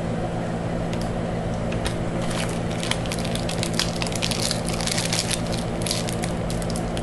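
Crackling, crinkling handling noise as rolls of washi tape are picked through on a table, starting about a second and a half in, over a steady low hum.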